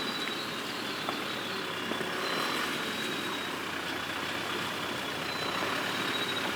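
Four-wheel-drive ute driving slowly over a rough dirt track: a steady hiss of engine and tyre noise with a faint high whine.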